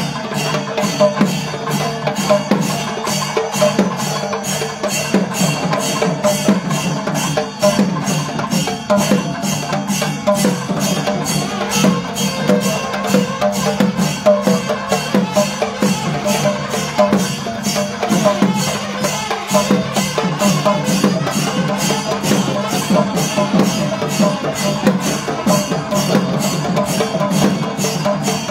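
Kerala temple percussion music: drums beaten in a steady, fast rhythm of about three strokes a second, over steady sustained tones.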